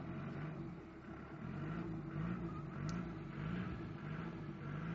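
Land Rover Defender's diesel engine revving up and down over and over, about two swells a second from about two seconds in, as the vehicle sits stuck in a muddy rut and strains to pull out.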